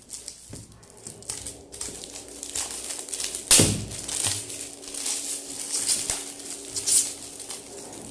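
Glossy gift-wrapping paper being torn open and crinkled by hand, with continual crackling and the loudest rip about three and a half seconds in.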